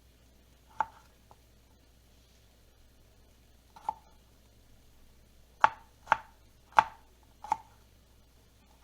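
Knife chopping on a cutting board: six sharp chops at uneven intervals, two spaced out in the first half, then four louder ones in quick succession.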